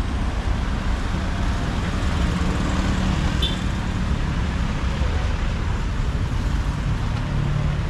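Street traffic: a steady rumble of road noise with the hum of engines passing, swelling twice. A short high ping sounds about three and a half seconds in.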